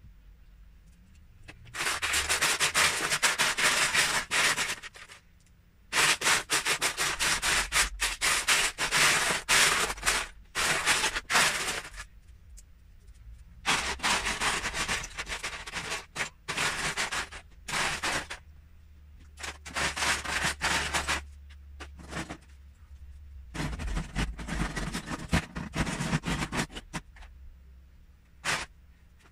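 Loose plastic Lego bricks rattling and clattering as a hand rummages through a plastic tub of mixed pieces. It comes in about five bursts of a few seconds each, with short pauses between.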